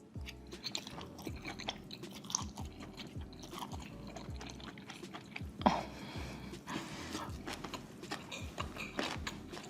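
Close-miked chewing: many small wet clicks and crunches of a person eating a big mouthful of food, with one louder sharp mouth sound just before the six-second mark.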